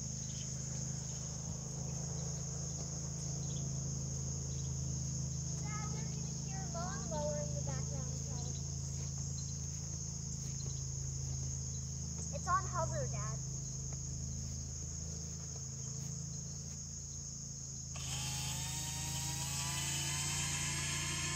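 Steady high insect trill over a low steady hum, with two brief chirping calls partway through. In the last few seconds the toy Star Destroyer quadcopter drone's motors spin up with a rising whine.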